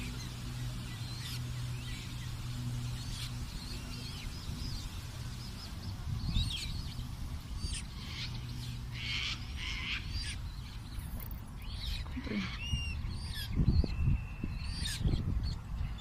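Australasian swamphen chicks peeping: a run of short, high chirps, busier in the second half, over a low steady hum.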